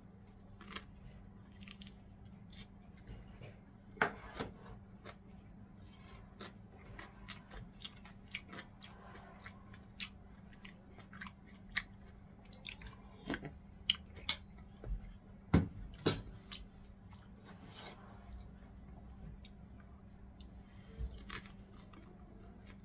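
A person eating close to the microphone: chewing with irregular sharp clicks and smacks, a few louder ones about four seconds in and again around fifteen to sixteen seconds, over a faint steady hum.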